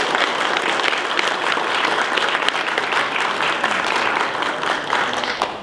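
Audience applauding: many hands clapping in a dense, steady patter that starts to die away near the end.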